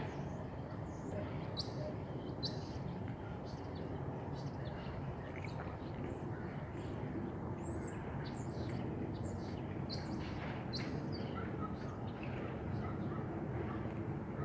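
Small birds chirping, many short high calls scattered throughout, over a steady low background rumble.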